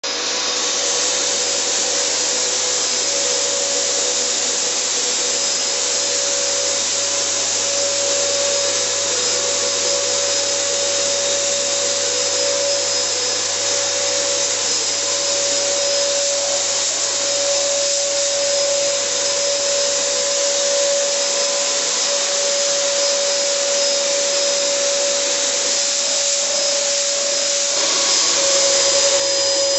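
Electric ULV cold fogger's blower motor running steadily with a constant whine over a rushing hiss. It starts abruptly, and the tone shifts slightly near the end.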